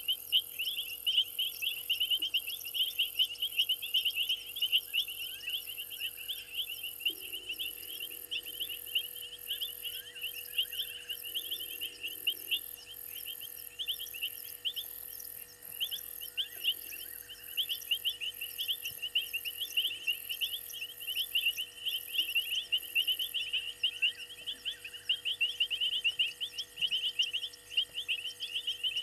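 Night chorus of frogs and insects at a waterhole: a dense, continuous chirping trill, with a very high insect call pulsing in a steady rhythm that stops about four-fifths of the way through.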